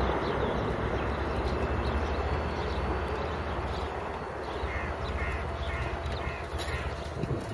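A crow cawing: about five short caws in quick succession a little past halfway, over a steady low rumble.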